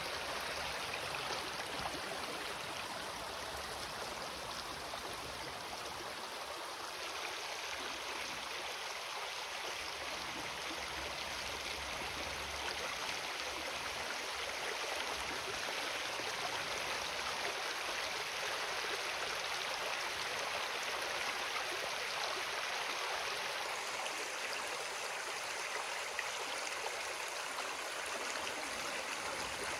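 River water flowing in a steady, continuous rush. The river is calm and low after little rain.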